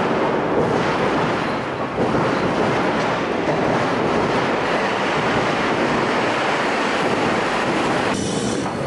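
Toei Arakawa Line streetcar pulling into the platform: a steady, loud rumble of its wheels and motors, with an abrupt change in the sound shortly before the end.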